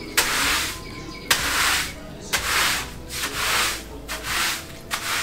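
Stiff synthetic-bristle push broom scrubbing across a granite-chip terrazzo floor in repeated strokes, about one a second, each a rough scratchy swish.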